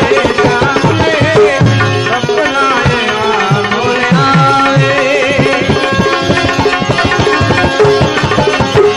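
Bhajan music led by tabla playing busily, its bass drum strokes sliding in pitch, under a sustained, wavering melody line.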